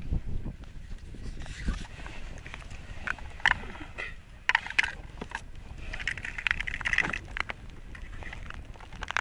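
Rustling and light clicks of clothing and small gear being handled, in short bursts, over a low rumble of wind on the microphone.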